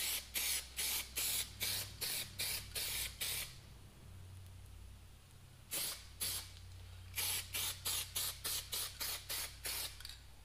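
Aerosol spray paint can sprayed in short, quick bursts: a rapid run of about nine in the first three and a half seconds, two more around six seconds in, then another rapid run of about ten.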